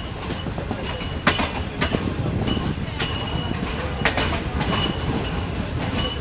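Passenger train coach running on the rails, heard from an open window: a steady rumble with sharp clacks as the wheels cross rail joints. From about two and a half seconds in, a high metallic squeal comes and goes.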